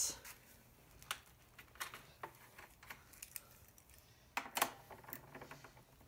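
Scattered light metallic clicks and taps as a lawnmower's recoil starter is set onto the engine and its 10 mm nuts are fitted by hand, with a short cluster of louder clicks about four and a half seconds in.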